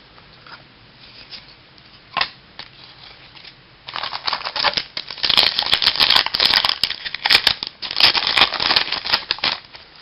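Crackling, rustling handling of a trading-card pack wrapper and cards, dense with quick clicks, starting about four seconds in and running for about six seconds. A single short click comes about two seconds in.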